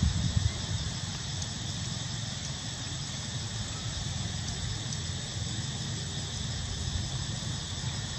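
Steady outdoor background noise: a constant low rumble under an even, insect-like hiss, with a few louder thumps near the start.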